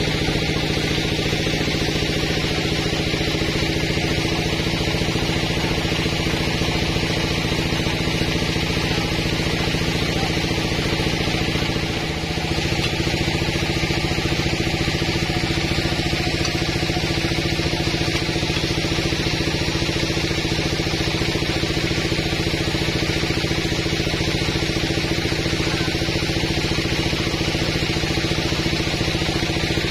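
Homemade band sawmill running steadily: a constant machine drone with an even hum, dipping briefly about twelve seconds in.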